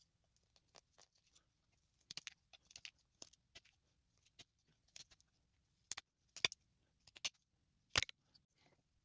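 Carving knife cutting into a small stick of wood, a run of short, sharp slicing clicks at irregular intervals as shavings come off. The loudest snaps come about six and a half and eight seconds in.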